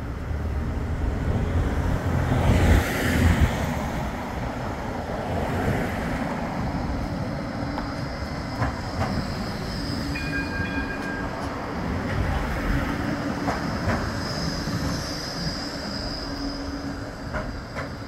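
Bombardier Flexity 2 tram running past on street track, its wheels rumbling and clicking over the rails, loudest about three seconds in. Two short high beeps sound about ten seconds in, and a high wheel squeal rises later on the curve.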